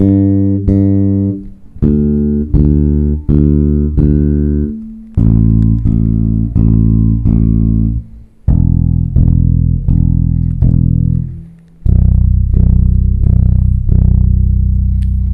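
Five-string electric bass plucked fingerstyle over the bridge pickup, with fingers alternating. It plays an even pulse of notes, four on each string, stepping down string by string to the lowest.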